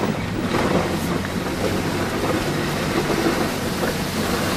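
A car running along the road at night, heard from inside the cabin: a steady rush of tyre and road noise over a low engine hum, building in the first second and then holding even.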